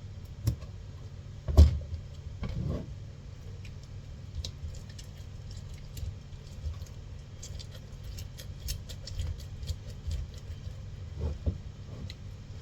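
Kitchen handling sounds of fruit being prepared: a knock about a second and a half in, then scattered light clicks and taps of fruit and utensils. A steady low hum runs underneath.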